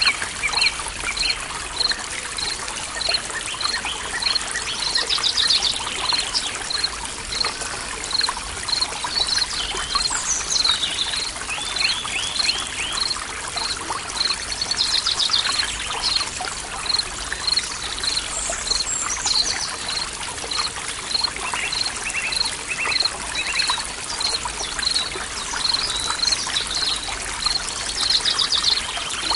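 Forest stream trickling steadily, with birds singing over it. One high chirp repeats about twice a second throughout, while other birds give trills and downward-sliding calls now and then.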